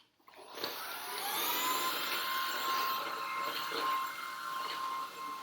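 Shark cordless stick vacuum switched on with a click, its motor spinning up with a rising whine over about a second, then running steadily with a high whine.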